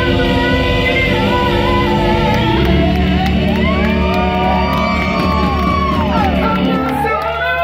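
Live gospel-blues band playing: electric guitar with bending, sustained notes over drums and keyboard, with backing singers and whoops from the audience.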